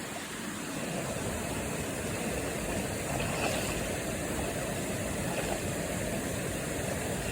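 Steady rush of falling and flowing water from waterfalls and river cascades.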